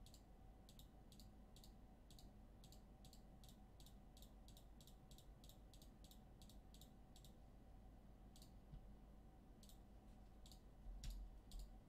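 Near silence with faint, evenly spaced clicks, about three or four a second for the first seven seconds, then a few scattered ones and a soft knock near the end, over a low steady hum.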